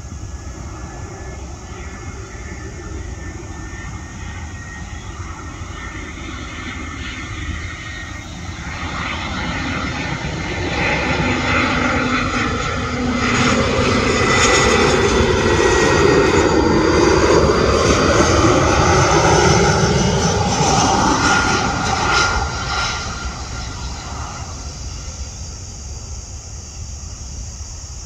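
Airbus A321 twin-jet airliner on final approach with its landing gear down, flying low overhead. The jet engine noise swells from about a third of the way in, is loudest in the middle, and fades away again near the end.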